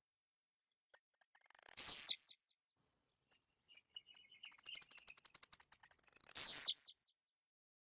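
Blue-black grassquit (tiziu) singing two phrases: each is a run of fast, high ticks ending in a loud note that slides steeply downward.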